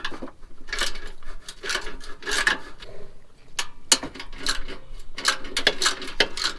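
Ratchet wrench with a 14 mm socket clicking in quick runs of strokes, with a few sharper metal knocks, as nuts on an exhaust header-to-overpipe flange are loosened.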